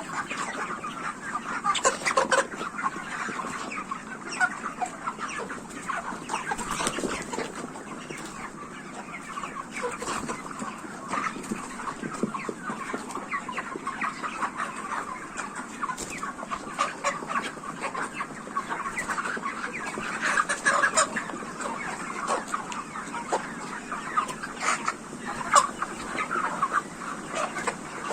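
A flock of 44-day-old broiler chickens clucking, with many short calls overlapping in a continuous chatter.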